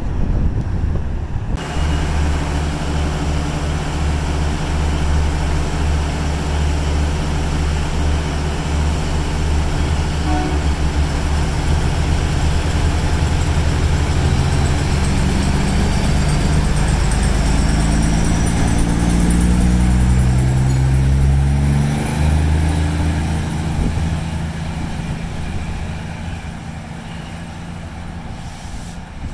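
Irish Rail Class 2600 diesel multiple unit's engines running with a deep steady hum, then revving up in a series of rising steps with a faint rising whine as the train pulls away from the station. The sound fades near the end as the train draws off.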